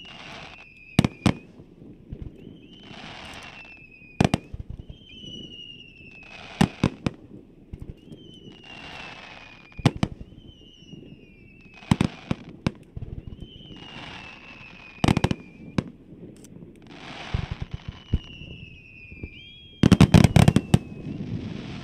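Fireworks display: sharp bangs of bursting shells at irregular intervals. About every two seconds comes a whistle falling in pitch along with a short hiss. A quick volley of many bangs near the end is the loudest moment.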